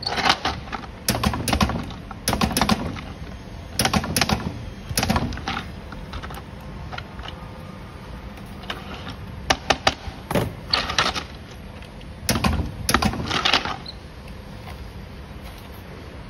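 Groups of sharp clicks and clatter from cylindrical lithium-ion cells, nickel connecting strips and a plastic cell holder being handled and pressed into place, with the sharpest quick clicks about nine and a half seconds in, over a steady low hum.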